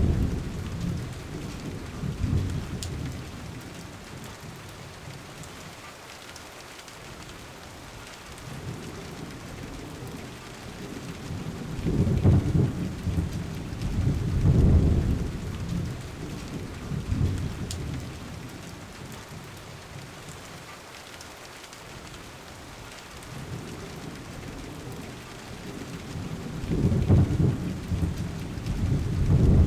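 Steady rain with rolls of thunder: low rumbles fade out at the start, swell up again about twelve seconds in, peak twice, and build once more near the end.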